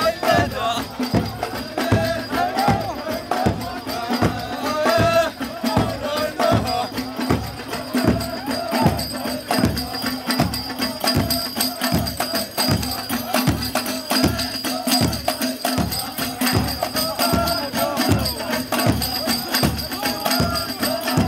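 Ahwach music: large Amazigh frame drums beaten in a steady pulse, about two strokes a second, under a chorus of men's voices singing together.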